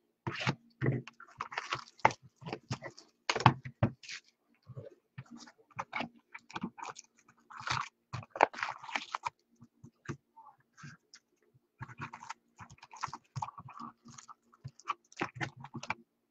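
Trading cards and their packaging being handled: crinkling wrapper and paper noise and small clicks of cards and cardboard, in short irregular bursts.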